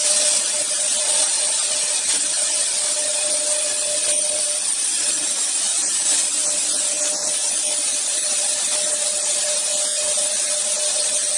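Double-spindle CNC router, both spindles cutting grooves into a wooden sheet at once. It makes a steady, high hiss of cutting, with a faint steady tone underneath.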